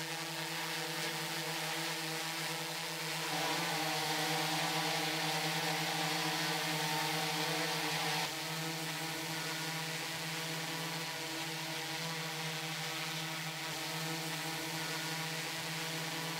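Hydrogen-fuel-cell DJI Matrice quadcopter's electric motors and propellers buzzing steadily in flight, a hum of several fixed pitches. It gets louder about three seconds in and drops back about eight seconds in.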